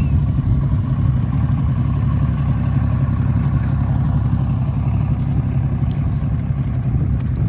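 Bass boat outboard motor running at low, idle-zone speed: a steady low rumble.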